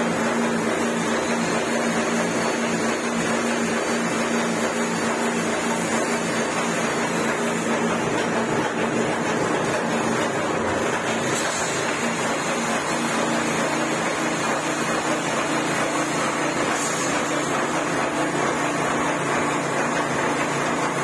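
Putty spray machine running with a steady motor hum and an even hiss as wall putty is sprayed through the hose-fed gun.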